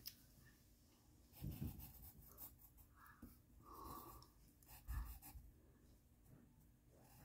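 Faint scratching of writing on paper, with a few soft rustles and two light bumps, about one and a half and five seconds in.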